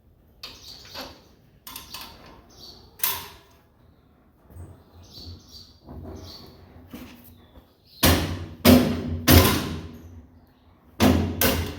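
A series of sharp knocks and bangs: scattered lighter knocks at first, then three loud bangs in quick succession about eight seconds in and three more near the end.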